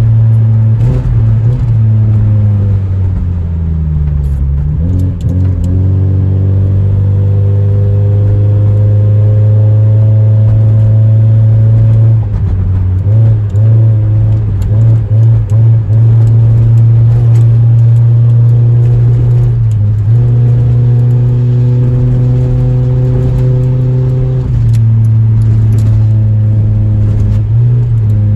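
Honda Civic EJ9 engine heard from inside the car while driving, its pitch climbing under acceleration and dropping back several times as the automatic gearbox shifts. The engine is misfiring on all four cylinders (Honda misfire codes 71–74).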